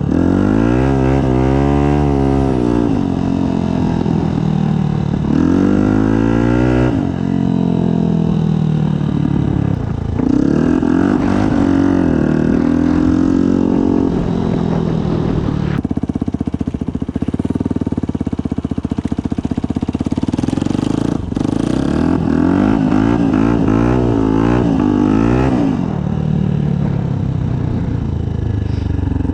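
Yamaha WR125's single-cylinder four-stroke engine through a Black Widow aftermarket exhaust, under way with the revs climbing and falling several times. Partway through there is a steadier stretch at higher revs.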